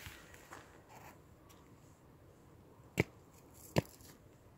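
Two sharp clicks, a little under a second apart, over faint outdoor background noise.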